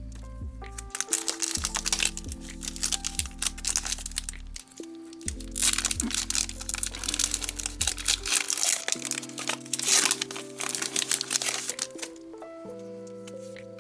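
Foil Pokemon booster pack wrapper crinkling and crackling as it is handled and torn open, over background music with held notes. The crackling starts about a second in and dies away near the end.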